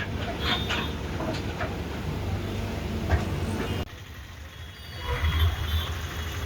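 Low engine rumble of heavy vehicles with scattered knocks and clicks, cut off abruptly past the middle and then resuming.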